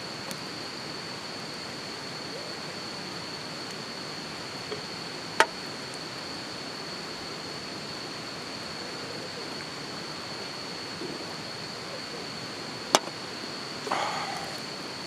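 Steady rushing outdoor noise with a continuous thin high-pitched tone, broken by two sharp snaps about seven and a half seconds apart and a short clatter near the end.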